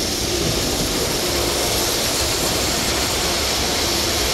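Steady rushing noise with a faint hum underneath, like room air-conditioning or fan noise, holding an even level throughout.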